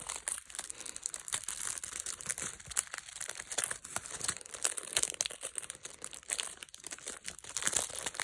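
Packaging crinkling and crackling in irregular bursts as it is handled and pulled open by hand to free a small item.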